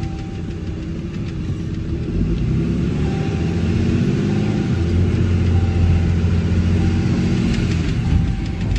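Tow truck's engine and road rumble heard from inside the cab; a couple of seconds in the engine pitch rises and the sound grows louder as the truck accelerates, then it settles into a steady low drone.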